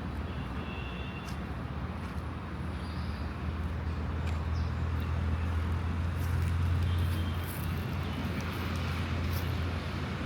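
Steady low rumble of road traffic, swelling gently about midway, with a few faint, brief high chirps.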